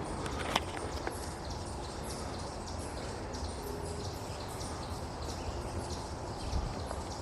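Footsteps walking along a dirt trail, an even crunching step about twice a second, with one sharper click about half a second in.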